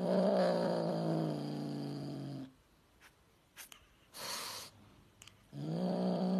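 Tabby kitten growling with a stick held in its mouth: a long low growl that slowly drops in pitch, a brief hissing noise about four seconds in, then a second growl starting near the end.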